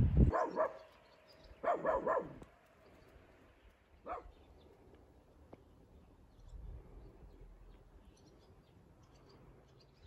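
A dog barking: a quick pair of barks near the start, a burst of two or three barks about a second and a half later, and one more single bark about four seconds in. Faint bird chirps.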